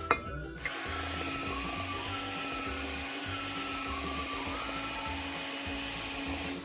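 Electric kitchen blender motor running steadily for about six seconds, switched on just under a second in and off just before the end.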